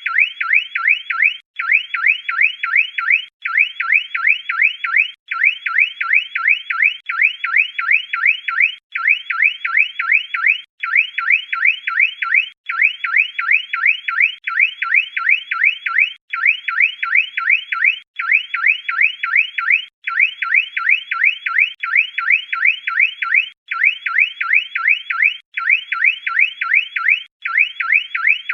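Car alarm siren sounding: a loud, high, fast warble of rapidly repeated chirps, in runs of about two seconds, each broken by a brief gap.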